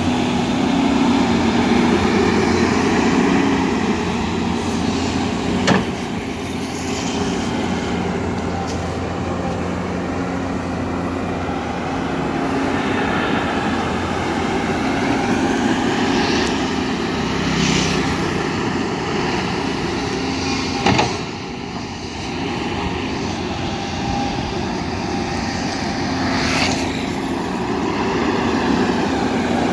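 Volvo EC210 excavator's diesel engine running steadily as it digs in wet mud, with two sharp knocks, one about six seconds in and another about twenty-one seconds in.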